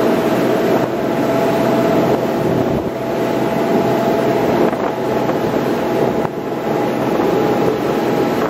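Passenger shuttle boat's engines running steadily under way, a constant drone with a faint steady whine, over the rush of water along the hull.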